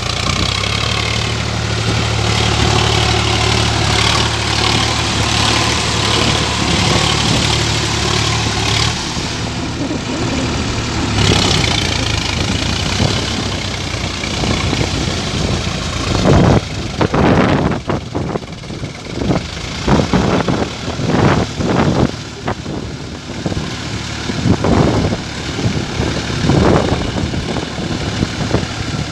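Sonalika tractor's diesel engine running, steady and even for the first nine seconds or so. In the second half it turns uneven, with repeated loud surges and thumps.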